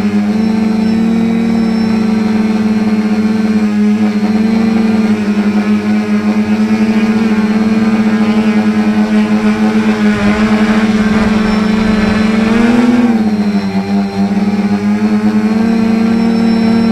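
Quadcopter drone's electric motors and propellers humming steadily as it flies, with a brief rise and fall in pitch about thirteen seconds in as the throttle changes.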